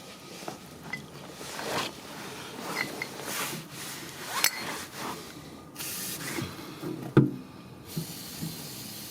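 Wiping and rubbing around a freshly tightened oil drain plug, a run of short rubbing and scraping strokes, with a single sharp knock about seven seconds in.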